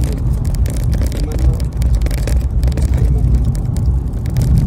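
Engine and road noise heard inside the cabin of a vehicle driving along a rough road: a steady low rumble with many short rattles over the top.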